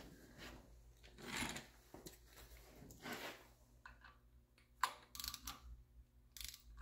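Faint clicks and knocks of a socket wrench on the camshaft sprocket bolts of a Triumph TR6 engine, mostly in a cluster about five seconds in. The bolts are being tightened while the timing chain is held taut to keep the chain lag out.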